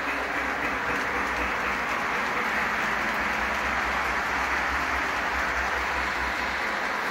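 Lionel Pennsylvania Flyer toy steam train running on its track: a steady hissing rush with a low rumble beneath.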